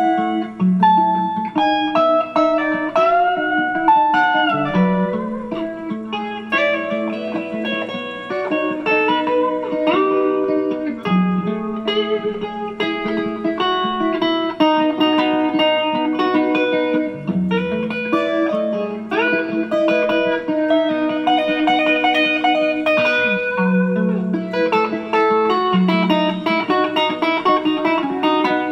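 Electric guitar played through a pedalboard: melodic single-note lines with string bends and held notes over a recurring low note.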